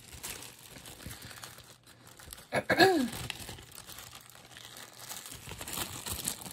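Crinkling of a plastic zip-top bag being handled and opened. About three seconds in comes one short vocal sound with a falling pitch.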